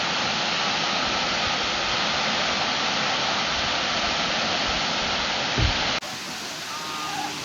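A large waterfall's steady rush of falling water, with one low thump about five and a half seconds in. About six seconds in it cuts off abruptly to a quieter background.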